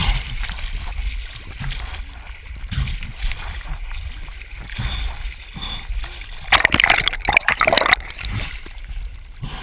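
Sea water sloshing and splashing around a waterproof camera as it bobs at the surface, dipping under and breaking back out, with muffled underwater gurgling and a low rumble. A louder burst of splashing comes about seven seconds in.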